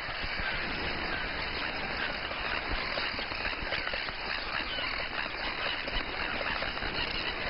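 Steady clamour of a crested tern breeding colony: many birds calling at once, their short harsh cries overlapping into a dense din.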